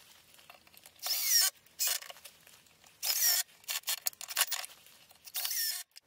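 Cordless drill or power screwdriver driving screws into plywood, run in about six short trigger bursts with pauses between them.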